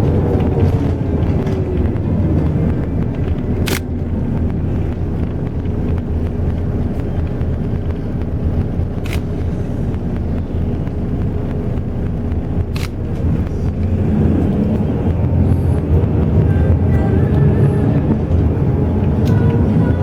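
Intercity bus engine and road noise heard from inside the cabin, a steady low rumble. The engine pitch falls in the first two seconds and starts rising again near the end. Three sharp clicks or knocks come at intervals.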